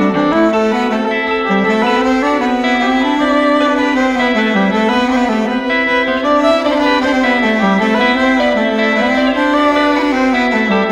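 Bass clarinet and fiddle playing a Breton-style tune together, with a low melody line that keeps rising and falling.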